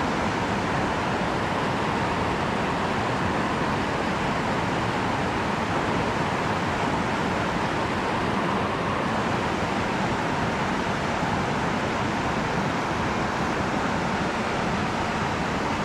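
River water rushing over a shallow rocky riffle: a steady, even rush with no break.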